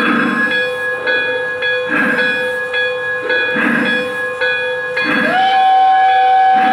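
Lionel Pennsylvania CC2 0-8-8-0 model steam locomotive's onboard sound system playing slow, evenly spaced exhaust chuffs, about one every 1.7 seconds, over steady background tones. About five seconds in, its hooter whistle starts a long, steady note.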